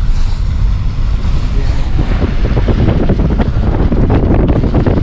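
Wind buffeting the microphone in a heavy low rumble, over the noise of a moving vehicle.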